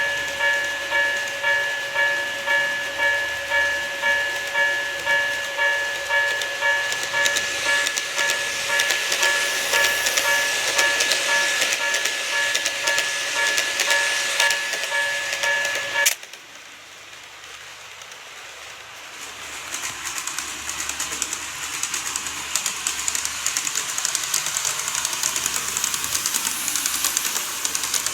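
Model train running on its track, a fast patter of small clicks and wheel noise that builds up over the last stretch. Before it, a pulsing electronic tone repeats about one and a half times a second and then stops suddenly about halfway through.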